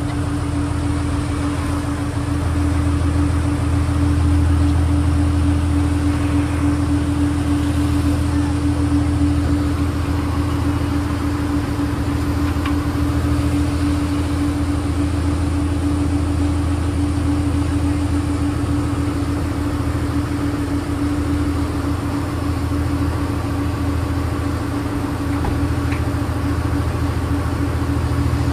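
An engine running at a steady speed: a deep, even rumble with a constant hum above it that does not change.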